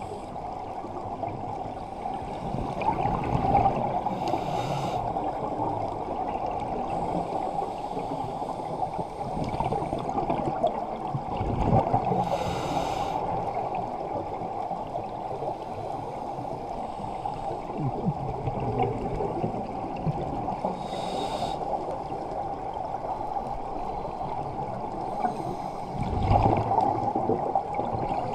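Underwater audio through a camera housing: a steady muffled rush of scuba regulators and rising exhaust bubbles, with a brighter hiss of breathing about every eight seconds.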